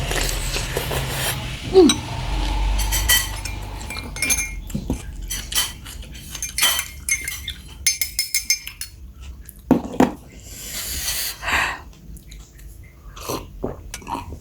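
Cutlery clinking and scraping against a bowl of bakso during eating: a long run of light, irregular clinks, some ringing briefly.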